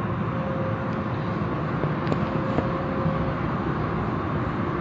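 Steady rushing noise with a faint, even hum from automatic car wash equipment running.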